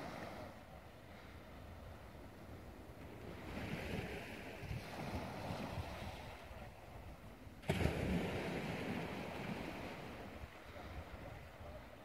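Small waves washing onto rocks along the shore, with wind rumbling on the microphone. A louder surge starts abruptly about two-thirds of the way through, then fades.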